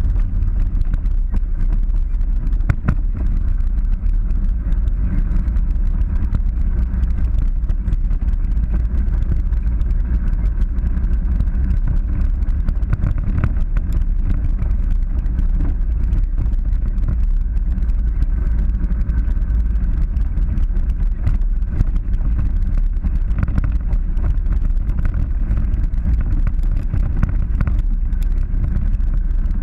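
Polaris 900 side-by-side UTV driving a rough dirt trail: a steady low rumble of engine and tyres, with many small rattles and clicks from the bumpy ground.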